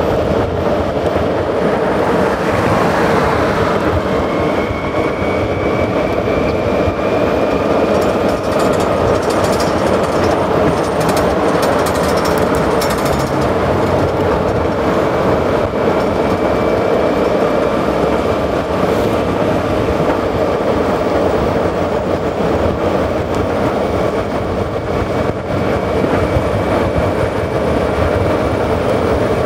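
Skateboard wheels rolling fast over asphalt: a loud, steady rumble, with light clicks from cracks in the pavement.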